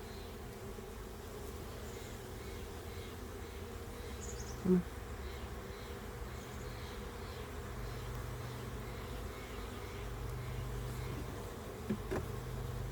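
Honeybees buzzing around an opened hive, a steady low hum. A brief knock about five seconds in is the loudest sound, and two smaller knocks come near the end.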